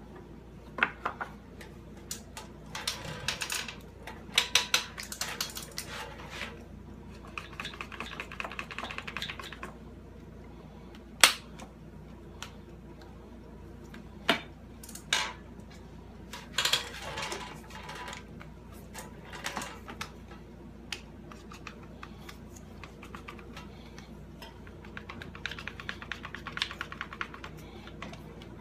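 One-handed bar clamps being squeezed shut on a wooden press mold: several bursts of rapid ratcheting clicks from the clamp triggers, with a few single sharp knocks between them.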